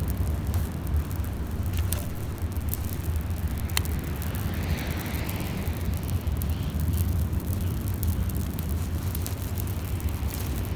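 Steady low rumble of surf breaking on a reef beach, with scattered sharp crackles and a brief rushing wash about halfway through.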